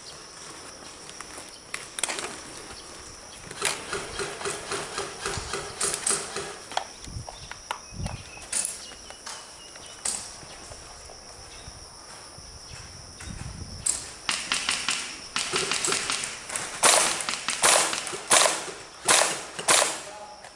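Footsteps and rustle of a player moving on foot across the field, in two runs of quick, short crunching steps, about four seconds in and again from about fifteen seconds, over a steady faint high whine.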